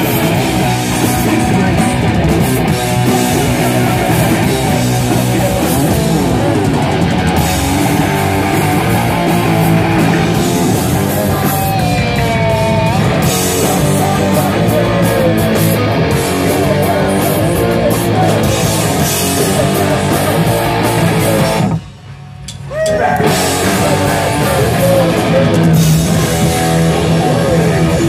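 Live rock band playing loud: distorted electric guitar, bass guitar and drum kit. The band stops dead for about a second roughly three-quarters of the way through, then comes back in.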